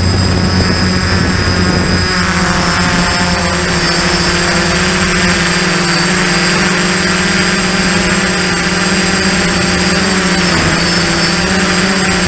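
Quadcopter's electric motors and propellers running in flight, heard close up from the onboard camera: a steady hum with a high whine above it. The tones shift about two seconds in as the motor speeds change.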